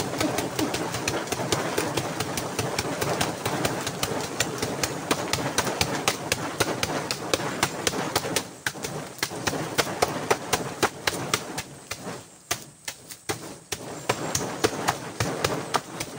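Bare fists punching the soft, fibrous trunk of a banana tree in quick succession, a steady run of dull thuds several a second. The hits thin out briefly about three quarters through, then pick up again.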